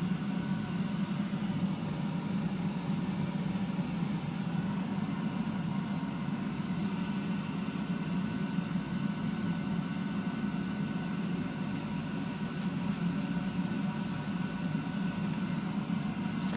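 Carlin EZ-1 gas conversion burner firing steadily under its noise-reducing cover on a steam boiler: an even, low running hum with a few faint steady tones above it.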